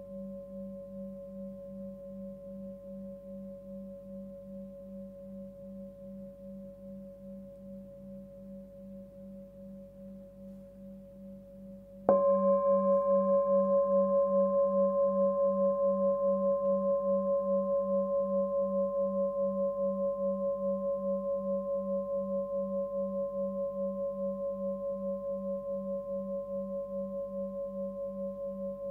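A 19.8 cm hand-forged Sun Moon singing bowl, fundamental about 193 Hz (G), ringing out with a pulsing waver about twice a second and higher overtones above it. About twelve seconds in it is struck again, and the renewed ring fades slowly.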